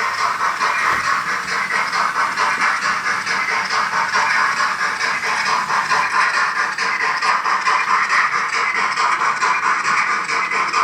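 Model steam locomotive's digital sound decoder playing steady, rapid exhaust chuffs through its small speaker as the locomotive runs.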